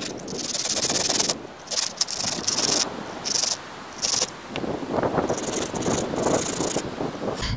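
Hand pruning saw cutting back and forth through a small wooden bow-drill fireboard, a rasping stroke about every half second to second, running nearly continuously in the second half. It is cutting the notch into the drilled hole that will collect the wood dust.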